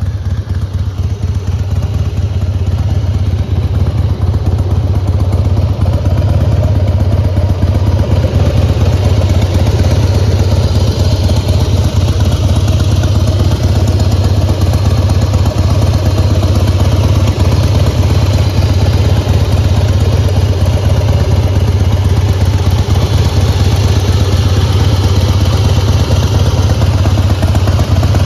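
2004 Harley-Davidson Heritage Softail Classic's 88-cubic-inch Twin Cam V-twin engine idling steadily, getting slightly louder over the first few seconds.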